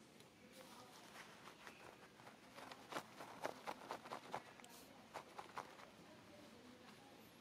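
Faint, irregular clicks and rustles over a quiet outdoor background, thickest through the middle.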